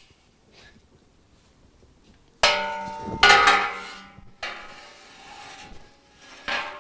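Welded square steel tubing frame clanging against another steel frame as it is handled: two ringing clangs about two and a half seconds in, with metallic ringing dying away over the next few seconds, and a lighter knock near the end.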